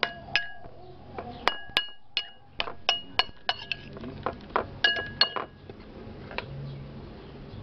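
Metal spoon clinking against a ceramic bowl while stirring a wet chopped-vegetable mixture: quick, irregular ringing clinks, two or three a second, that thin out after about five seconds, with one last clink a little later.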